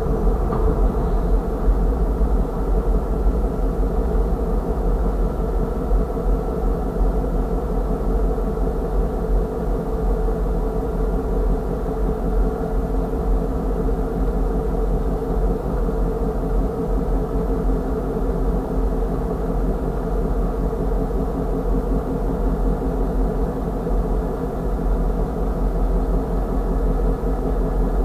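Steady low rumble of an idling engine, even and unchanging throughout, with no wheel or rail noise.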